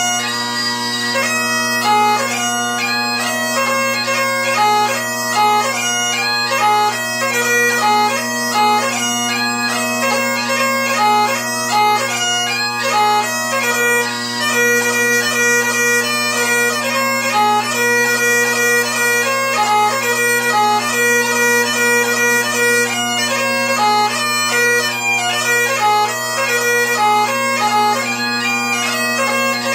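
Great Highland bagpipe played solo: steady, unbroken drones under a quick chanter melody of rapidly changing notes.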